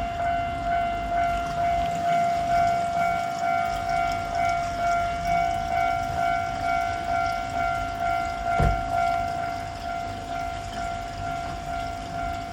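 Japanese level crossing warning bell ringing steadily, a repeated pulsing clang on one pitch. A single low thump comes about two-thirds of the way through.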